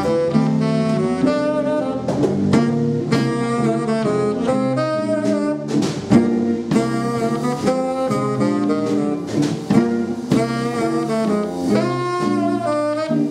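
Live small-group jazz: a tenor saxophone leads over electric guitar, upright double bass and drum kit, with the drums marking the beat.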